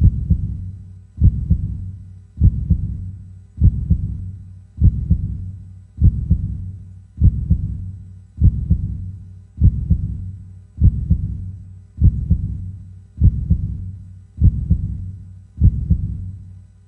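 Heartbeat sound effect: a slow, steady heartbeat of low, deep thumps, about one every 1.2 seconds, each dying away before the next.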